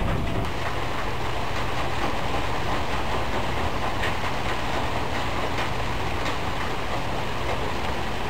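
Steady heavy rain falling, an even rushing hiss with faint scattered drip ticks. In the first half second the last of a low thunder rumble fades out.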